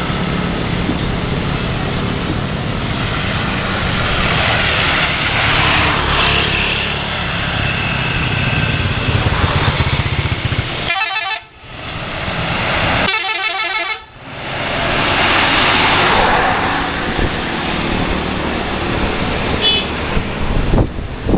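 Tour buses running with their horns sounding, including the multi-tone 'telolet' musical horns of Indonesian buses, over the low sound of the bus engines. The sound drops out briefly twice around the middle.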